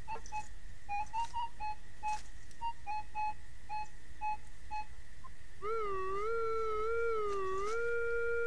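Minelab E-Trac metal detector signalling a buried target, which turns out to be a small silver threepence coin: a string of short, clipped beeps as the coil sweeps across it. About two-thirds of the way in, this gives way to a continuous lower tone that wavers in pitch, holds steady and then cuts off sharply.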